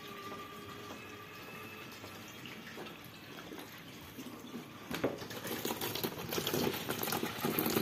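Tap water running through a freshly opened supply tap and hose into the tub of a twin-tub washing machine. At first it is a quiet hiss with a thin steady tone; about five seconds in the water starts pouring into the tub and the splashing grows louder.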